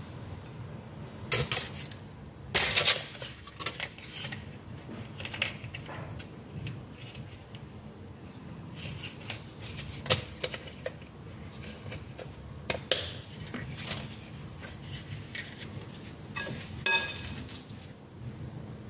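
Metal spoon clinking and scraping against a glass mixing bowl as dumpling filling is scooped out, in scattered sharp knocks at irregular intervals. One clink near the end rings briefly.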